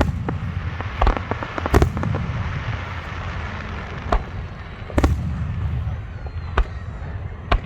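Aerial fireworks display: about seven sharp booms of shells bursting, unevenly spaced, with crackling after the burst near two seconds in and a low rumble throughout.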